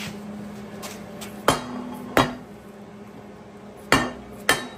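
A dead blow hammer strikes the welded-on shave-kit cover of a cast-iron Dana 60 axle housing four times, as two pairs of sharp knocks: one pair about a second and a half in, the other near the end. The blows are a hammer test of the new welds on the cast housing.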